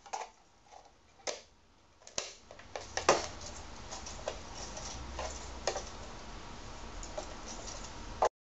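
Sharp plastic clicks and knocks as a temperature controller's circuit-board chassis is slid into its plastic housing, about one a second at first. From about three seconds in, a steady hiss with scattered light clicks runs until it cuts off abruptly near the end.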